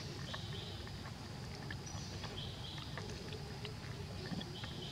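Baby macaque suckling milk from a plastic bottle: faint, irregular little clicks over a low outdoor rumble. A short high buzz comes three times, about two seconds apart.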